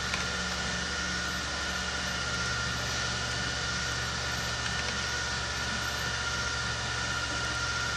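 Steady background hum and hiss with a constant high whine, and two faint clicks right at the start.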